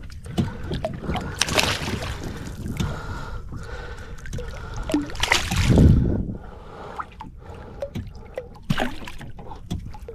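Water splashing and sloshing beside a small fishing boat, with irregular knocks and handling noise, as a hooked fish is brought up and landed. About halfway through there is a louder rush.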